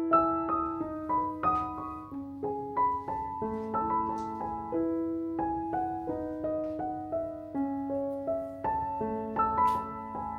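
Background piano music: a gentle melody of single notes over longer, held low notes.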